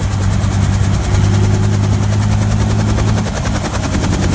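Helicopter running close by: a steady low hum with a fast, even beat of the rotor blades.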